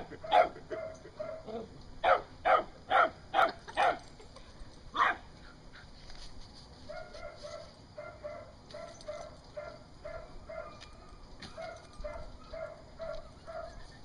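Vizsla dogs barking: a quick series of loud barks through the first five seconds, then a softer run of short, evenly repeated yips, two to three a second.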